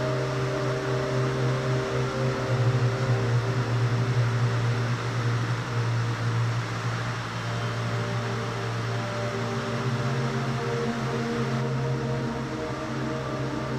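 Ambient background music: sustained, droning low chords that shift a few times, over a steady hiss.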